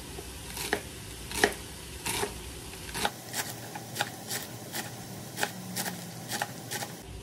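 Kitchen knife chopping romaine lettuce on a plastic cutting board: a run of crisp cuts, irregular but about two to three a second.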